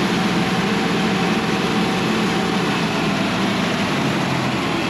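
Cook's AC-36 band sawmill running on its diesel engine, a steady engine note with a dense hiss above it, as the saw head travels down the log. The lowest part of the sound drops away about three and a half seconds in.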